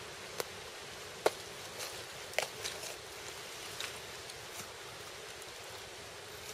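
Lone Wolf Harsey T2 Ranger knife cutting deer hide and flesh at the neck: a few short, sharp clicks and snicks, the loudest about a second in, over a steady background hiss.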